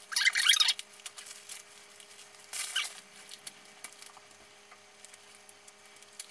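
Protective wrapping being pulled off a leather tote's handles: two short bursts of rustling and squeaking, the first just after the start and the second about two and a half seconds in, with light ticks and rustles in between.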